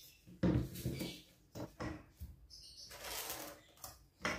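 A metal try square set down with a knock on a thin wooden board, with light handling clicks, then a pen scratching a line along the square's edge for about a second. There is another sharp knock near the end.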